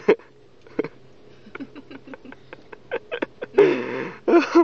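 A toddler hiccuping: a few short, sharp hiccups, with faint mouth clicks in between and a longer breathy burst about three and a half seconds in.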